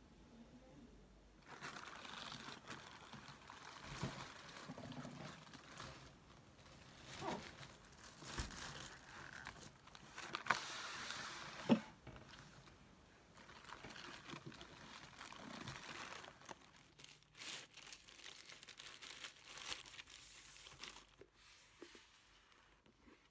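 Rustling and crinkling of something being handled close up, with a few sharp taps or clicks, the loudest about halfway through.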